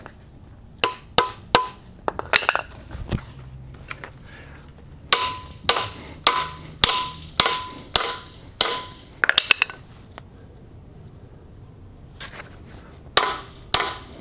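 Hammer blows driving a polyurethane bushing into the eye of a rear lower control arm, done without a press. They are sharp metallic strikes with a ringing tone: a few about a second in, a steady run of about two a second through the middle, then a pause and a few more near the end.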